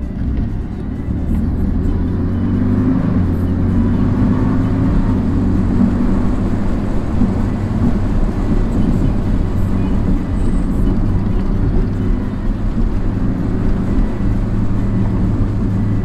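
A Porsche sports car's engine running at a steady pace while under way, heard from inside the cabin.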